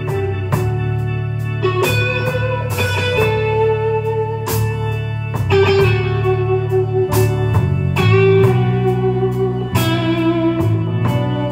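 Live rock band playing an instrumental passage: an electric guitar lead in long held notes over bass and drums, with frequent cymbal hits.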